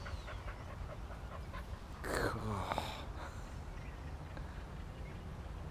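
A dog yelping once about two seconds in, the cry falling in pitch, over a steady low rumble.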